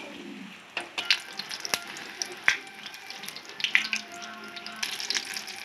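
Gram-flour-battered jute-leaf fritters sizzling in hot oil in a kadai, a steady crackle with frequent sharp pops.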